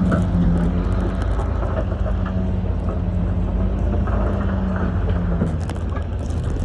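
Heavy diesel earthmoving machine running steadily with a low drone, with scattered clicks and knocks over it.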